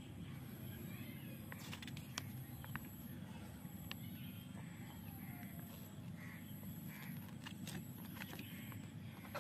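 A paper leaflet is handled, opened and folded, giving a few light crackles and clicks, over a steady low outdoor background rumble. A few short bird calls sound in the distance partway through.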